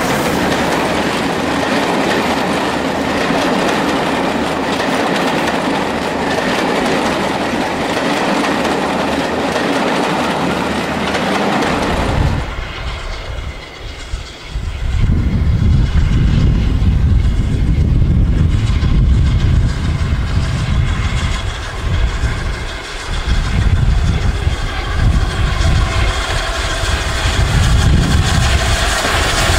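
Carriages of a steam-hauled passenger train rattling past close by, wheels clicking over the rail joints. After a cut about 12 seconds in, a deep low rumble as another steam train approaches, swelling and dipping.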